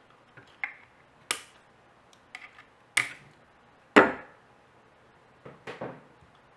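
Sharp clicks and knocks, several in a row and spaced irregularly, from speaker parts and tools being handled while a small powered speaker is taken apart. The loudest knock comes about four seconds in.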